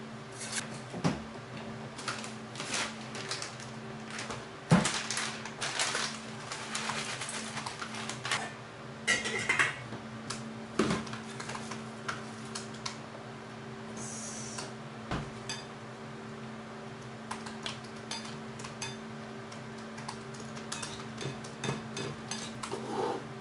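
Kitchen work at the counter: metal pot, tongs and dishes clinking and knocking at irregular intervals, the loudest knock about five seconds in. A plastic bag rustles briefly near the middle, all over a steady low hum.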